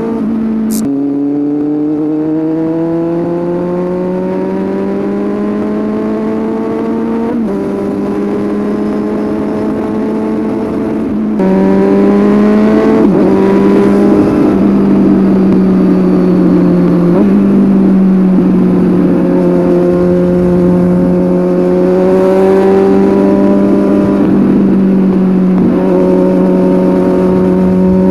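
Kawasaki Z800's inline-four engine through a Scorpion aftermarket exhaust under way, its pitch climbing slowly and then stepping at each gear change. It gets louder about 11 seconds in, and a brief high chirp sounds near the start.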